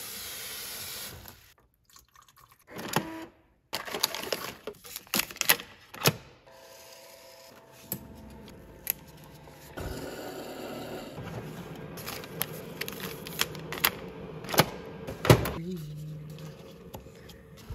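Tap water running into a plastic pitcher for about a second and a half, then a string of sharp clicks and knocks from cups and coffee things being handled, with a steady hiss for several seconds in the middle.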